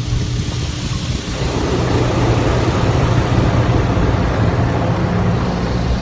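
Water jets of an automatic car wash spraying the car, heard from inside the cabin: a dense rushing hiss that swells about a second in, over a steady low hum.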